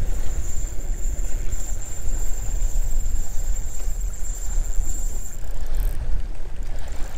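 Wind buffeting the microphone: a steady, gusting low rumble, with small waves lapping at the shore underneath.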